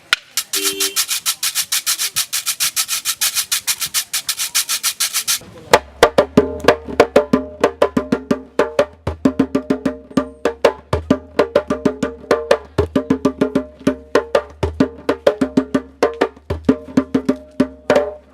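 Percussion music: a fast, even scraping rattle for about five seconds, then struck wooden percussion playing a rhythmic pattern over a low steady drone, cutting off abruptly at the end.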